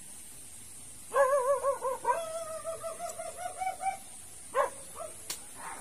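Dog howling: one long wavering call starting about a second in and rising slightly in pitch over nearly three seconds, then a short yelp near the end.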